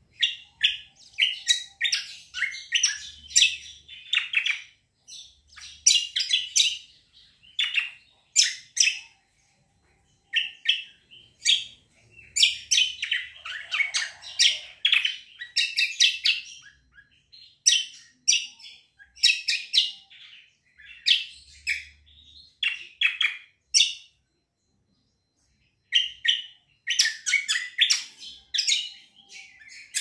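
A caged kecial kombo songbird singing in rapid, high chirping phrases, bursts of notes broken by short pauses. There is a longer pause of about two seconds near the end.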